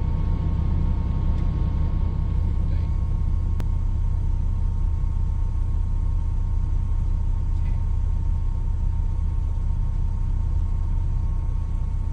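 Mitsubishi Magna VR-X AWD's V6 engine idling, heard inside the cabin as a steady low rumble, with a faint steady high tone over it and a single click about three and a half seconds in.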